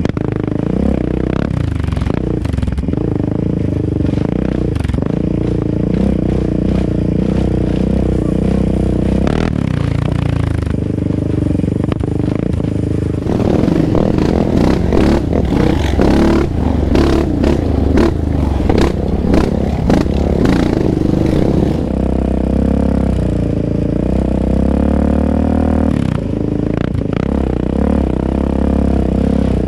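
Yamaha Raptor 700R's single-cylinder four-stroke engine, with an aftermarket exhaust, running under way on a dirt trail, its pitch rising and falling with the throttle. From about 13 to 22 seconds in it gets louder and rougher, with rattling and scraping over the bumps.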